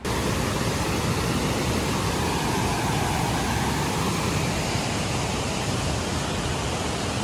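Whitewater river rapids rushing, a steady, even wash of water noise.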